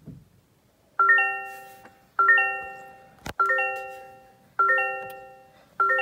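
Toyota GR Corolla's dashboard warning chime ringing five times, evenly about every 1.2 s, each ding dying away before the next, right after the ignition is switched on. A single sharp click sounds between the second and third chimes.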